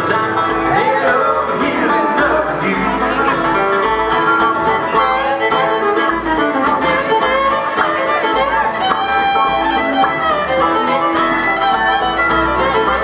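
Live bluegrass band playing an instrumental passage, the fiddle out front over strummed acoustic guitars, upright bass, dobro and banjo.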